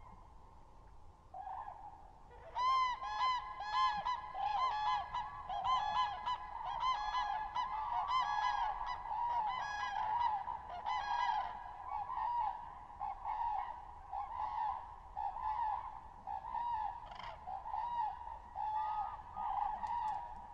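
A flock of common cranes calling: many overlapping trumpeting calls start about two seconds in, loudest and densest for the next several seconds, then continue somewhat more softly.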